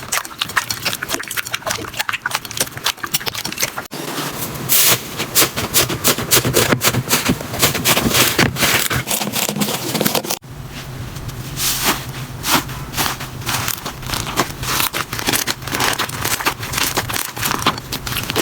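Slime being pressed, squeezed and poked by hand, giving dense crackling and popping clicks. The texture of the sound changes abruptly about four seconds in and again about ten seconds in, as a different slime is handled.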